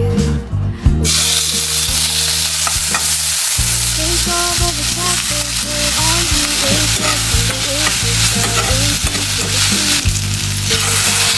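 Food sizzling as it fries in a hot pan, the hiss starting suddenly about a second in.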